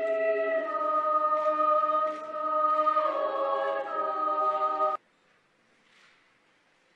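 Girls' choir singing long held notes in chords, the harmony shifting about three seconds in; the singing cuts off suddenly about five seconds in.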